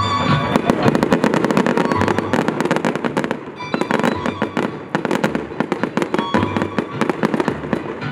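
Fireworks display: a dense run of rapid pops and bangs from aerial shells bursting, with a brief lull about three seconds in, and the show's music playing underneath.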